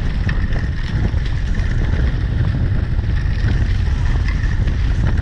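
Wind buffeting the microphone and water rushing past the hulls of a small sailing catamaran under way, a steady loud rumble with splashing hiss.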